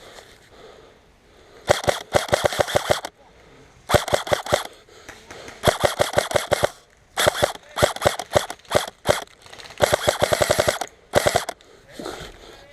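Airsoft gun firing on full auto in about seven short bursts of rapid clicking shots.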